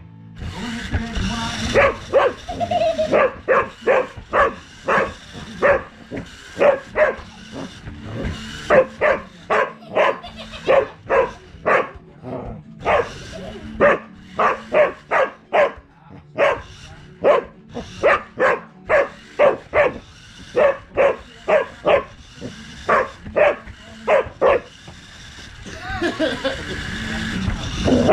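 Dog barking in a long run of short, repeated barks, about two a second, at a remote-control car.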